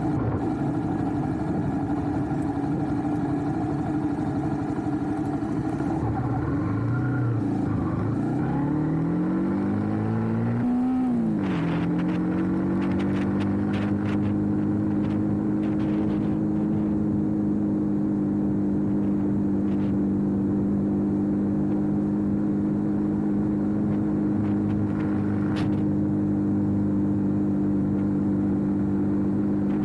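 Motorcycle engine idling. Its pitch wanders up and down for a few seconds about halfway through the first half, then settles into a steady idle.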